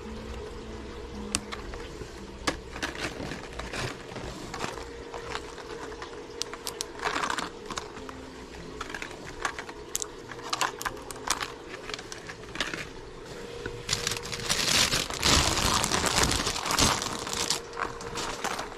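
Plastic-packaged minnow lures being handled and hung on display pegs: scattered clicks and taps, with a longer stretch of crinkling plastic about three-quarters of the way through.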